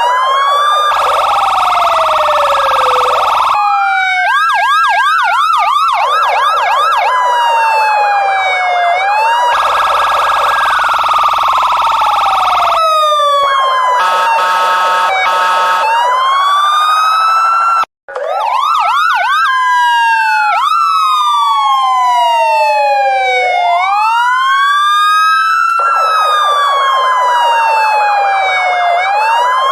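Police car electronic siren cycling through its tones: slow wailing sweeps up and down, a stretch of fast yelping sweeps a few seconds in, and bursts of a steady horn tone laid over the wail. The sound cuts out for an instant a little past halfway.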